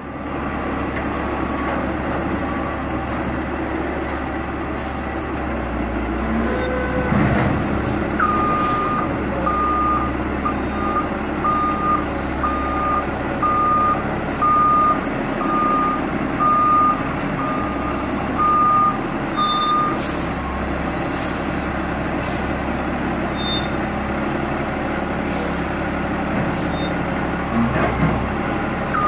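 Front-loader garbage truck's diesel engine running steadily, with its reverse alarm beeping evenly for about twelve seconds from near the third of the way in while the truck backs up. A short hiss of air sounds just before the beeping starts and again near the end.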